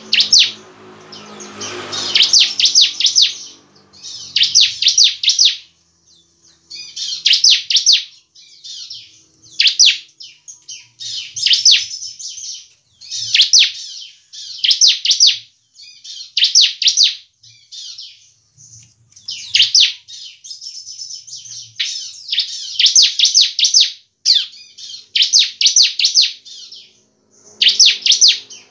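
Bar-winged prinia (ciblek) singing in its cage: short bursts of rapid, high, clicking trills, each about a second long, repeated every second or two.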